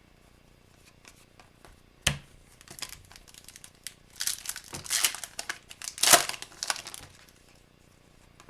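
Foil trading-card pack wrapper being torn open and crinkled: a sharp snap about two seconds in, then bursts of crinkling from about four to seven seconds.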